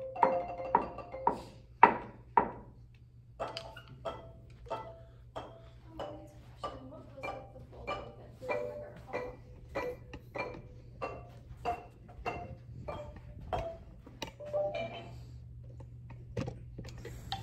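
Marimba bars struck with mallets: a few loud ringing notes at first, then a slower, quieter run of single notes at an even pace of under two a second. The notes stop about three seconds before the end, and a few handling knocks follow.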